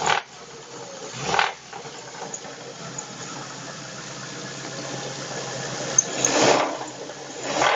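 Ford Focus 2.0 Zetec engine running with a steady hum, broken by short bursts of harsh noise four times: one at the start, one a little over a second in, and two near the end. This is the bad noise the engine is making.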